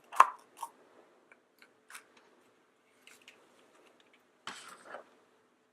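A plastic surprise egg being opened by hand: a sharp click as it pops open, then small ticks and crackles of handling and confetti, and a brief crinkly rustle near the end.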